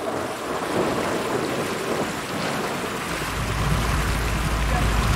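Wind buffeting the microphone over rushing water on a moving sightseeing boat. About three seconds in, a steady low engine drone comes up beneath the noise.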